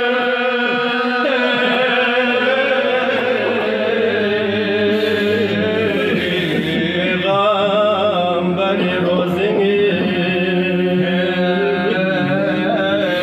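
A Balti marsia, a mourning elegy, chanted by male voice in long, drawn-out, wavering notes.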